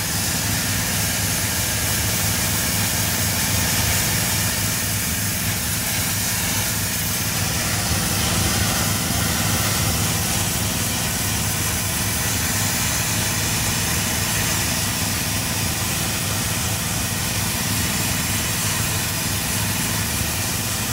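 High-pressure steam cleaner blasting algae off sandstone: the steady hiss of the steam jet from the lance over the constant drone of the machine's engine and pump.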